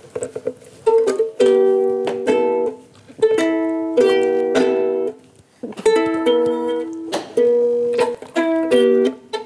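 Ukulele strummed in a series of chords, each chord struck sharply and left ringing for up to about a second, with a few quicker strokes between.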